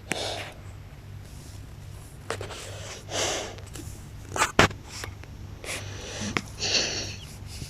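French Bulldog snoring loudly: three noisy, rasping breaths about three seconds apart, with sharp snorts or clicks between them, the loudest a little past the middle.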